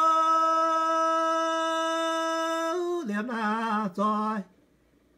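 A man singing alone and unaccompanied, chanting a traditional Iu Mien ritual song: one long held note, then a few short syllables on a lower pitch, breaking off about four and a half seconds in.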